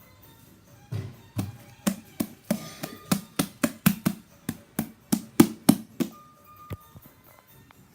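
Fluffy shaving-cream slime being squeezed and worked in the hands, giving a quick run of sharp clicks and pops, about four a second, that starts about a second in and stops about six seconds in.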